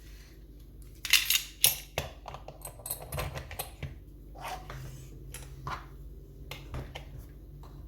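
Metal clinks and knocks of lever lock parts being handled and set down on a hard surface: a cluster of sharp clinks about a second in, a brief ringing clink near the middle, then scattered lighter clicks.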